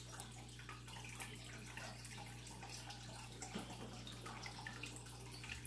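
Faint, scattered light clicks and clinks of small costume jewelry pieces being handled and sorted, over a steady low electrical hum.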